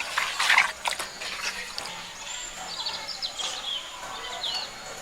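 A short harsh noise about half a second in, then small birds chirping with quick rising and falling notes, over a thin steady high buzz.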